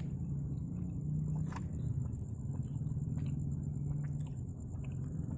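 A low steady engine hum, with a few faint clicks.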